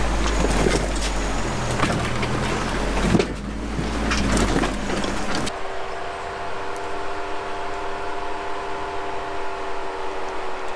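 Off-road 4x4 engines crawling over rock. First an engine runs with a heavy low rumble and scattered sharp knocks and crunches. About five seconds in it changes abruptly to a steadier, quieter engine hum with a few faint clicks as a Jeep idles up to a boulder.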